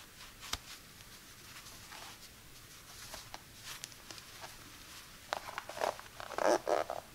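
Fingers rubbing and handling a pack of cotton crew socks and their cardboard wrapper band: soft scratchy rustling with a few light clicks, and a louder burst of crackly rustling near the end.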